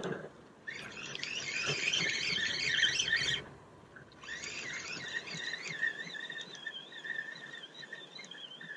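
Spinning reel being cranked to reel in the line: a high whirring of the reel's gears in two spells, with a short break about three seconds in, its pitch wavering with the turns of the handle.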